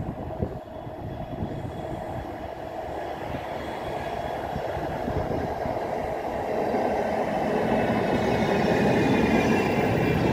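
Manchester Metrolink Bombardier M5000 tram approaching along the track and passing close by, its running noise growing steadily louder. A high whine of several tones comes in as it draws near.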